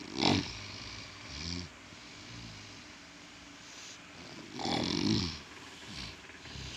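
A sleeping man snoring loudly: a sharp snort just after the start, a softer snore about a second and a half in, and a long rattling snore about five seconds in.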